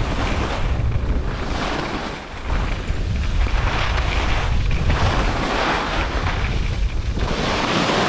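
Skis running on packed, groomed snow: a rushing scrape that swells and fades with each turn, under heavy wind buffeting on the microphone.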